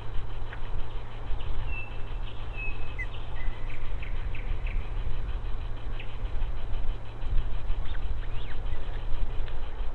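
Bird calls: scattered short high chirps and brief gliding whistles, a few held a little longer about two and three seconds in, over a steady hiss and a strong low rumble.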